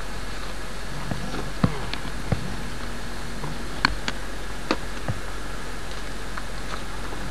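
Several sharp clicks and knocks, about four of them, from a metal feed bucket and wooden trough being handled while calves are hand-fed. Under them runs a steady hiss and low hum, like old videotape.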